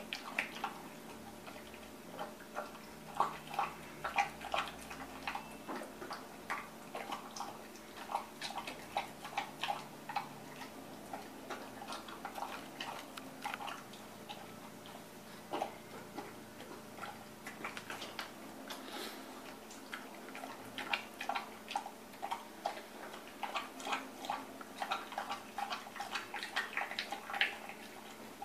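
A large dog eating soft homemade food from a stainless steel bowl: quick, irregular clicking chewing sounds, several a second, coming in runs with short pauses.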